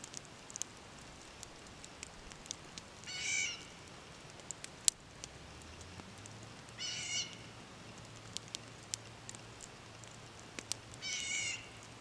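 Three mewing, cat-like animal calls, each about half a second long and a few seconds apart, over the scattered sharp pops and crackle of a small campfire.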